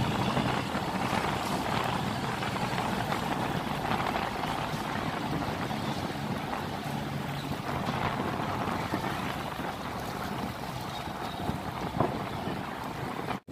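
Steady rush of water pouring through an open sluice gate, with the low drone of a heavily loaded cargo barge's engine pushing against the strong current.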